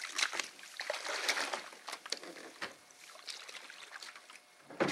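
Gear being loaded into a canoe at the water's edge: irregular knocks and rustling against the hull, with some splashing, and a heavier thump near the end.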